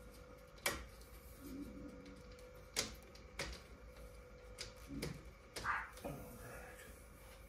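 Scattered sharp plastic clicks and knocks as water-cooling hoses are worked loose from a CNC router's plastic drag chain, about five in all, over a faint steady whine.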